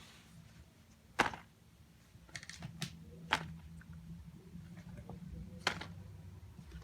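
Scattered light clicks and taps of plastic and silicone fidget toys and pop-its being handled and set on a stack, a few sharper taps among softer ones, over a faint low hum.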